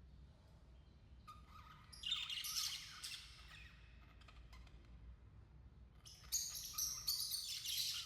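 Budgerigars chirping and chattering in two busy bursts of quick, high chirps, one about two seconds in and another from about six seconds in.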